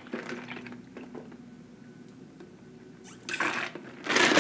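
Sipping a drink through a straw from a plastic cup, with faint slurping and swallowing. Near the end comes a loud rushing, hissing noise.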